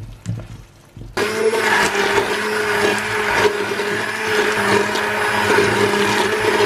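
A few light knocks, then about a second in a hand blender switches on and runs steadily, puréeing cooked onion, garlic and carrot into a sauce in a pot.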